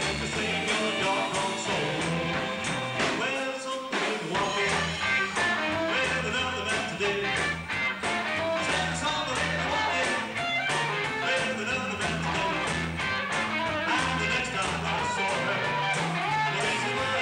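Live rock and roll band playing with electric guitars, bass and drums to a steady beat, with a singer. The bass drops out for a moment about three and a half seconds in.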